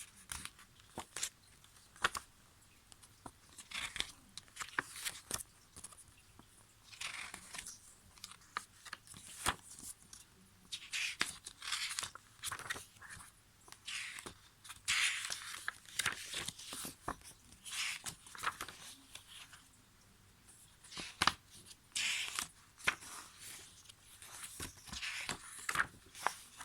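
Pages of an album's photo book being turned and handled: irregular paper swishes and sharp crisp clicks.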